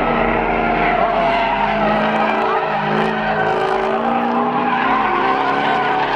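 Drift cars sliding: engines revving up and down at high revs with tyres skidding on the pavement.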